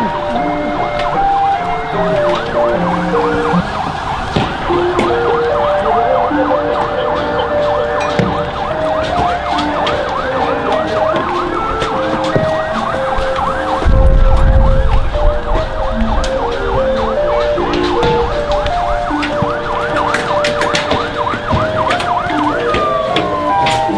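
Riot alarm sound effect: siren-like sounds made of many quick rising chirps, over a string of held tones that step up and down in pitch. About 14 seconds in, a deep rumble comes in for a couple of seconds and is the loudest part. Near the end a single tone glides downward.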